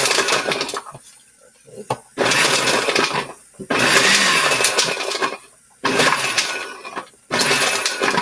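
Inexpensive countertop blender pulsed in five short bursts of about a second each, its motor spinning up and down as it grinds hard frozen berries.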